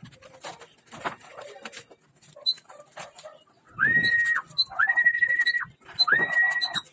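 A person whistling three times, starting about four seconds in; each whistle rises quickly to a high note, holds it steady for most of a second, then drops off. This is the keeper's feeding whistle, the signal for young pigeons to come down off the landing board into the loft to eat. Faint clicks and rustling come before the whistles.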